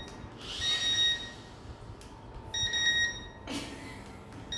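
Electronic beeping from a V-Max HX763 toy drone set: a high, steady beep of under a second, repeating about every two seconds, three times.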